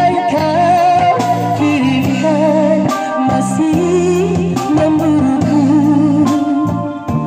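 A woman singing into an amplified microphone, her held notes wavering with vibrato, over an electric guitar: live street-band music.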